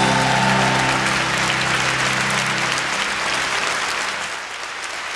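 Concert audience applauding over the song's last held chord, which dies away about three seconds in while the applause carries on.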